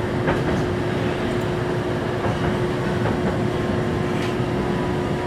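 Toyohashi Railroad 780-series tram running along street track, heard from inside the car: a steady rumble with a constant low hum and a few faint clicks.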